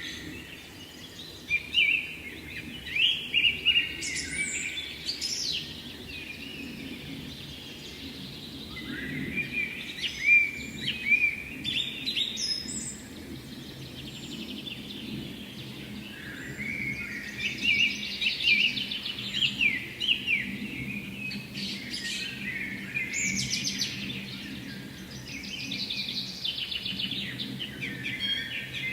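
A songbird singing, with a run of quick chirping and trilled phrases about every few seconds, over a steady low rushing background.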